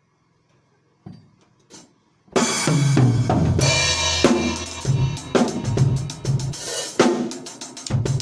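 Acoustic drum kit: two light taps, then from about two seconds in a loud, busy pattern of bass drum, snare and crashing cymbals.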